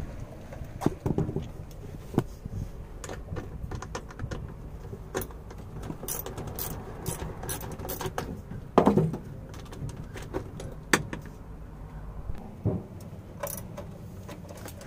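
Socket ratchet clicking and metal tools clinking while the negative terminal clamp of a car battery and a 10 mm bolt under the dash are undone. There are scattered short clicks, with a louder knock about nine seconds in and another near the end.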